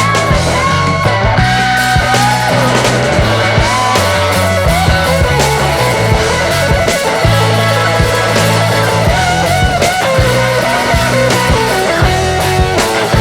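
Rock music with electric guitar and a steady bass line.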